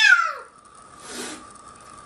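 Domestic cat's drawn-out yowl falling in pitch and ending about half a second in, followed by a short hiss-like burst of noise about a second in.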